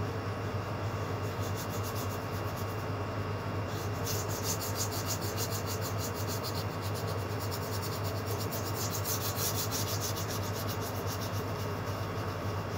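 A flat paintbrush being stroked back and forth across paper, several quick strokes a second, starting about a second in and stopping just before the end, over a steady low hum.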